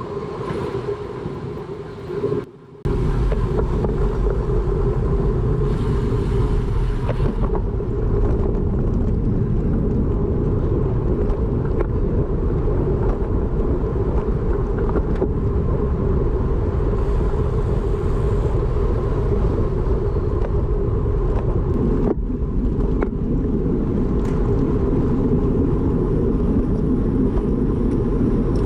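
Wind rushing over the microphone of a camera on a racing bicycle at speed, a steady low rumble of wind and road noise. It drops out briefly about two and a half seconds in.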